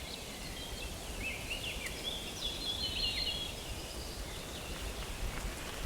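Outdoor ambience of small birds chirping in quick, overlapping calls over a faint low rumble.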